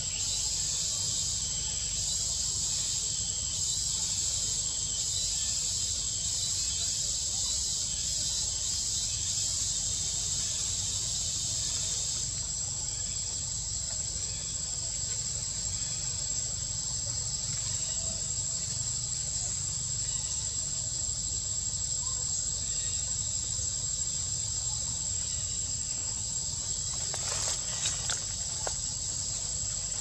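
Steady high-pitched insect drone, a continuous thin whine over a hiss, with a low rumble underneath. A few faint clicks come near the end.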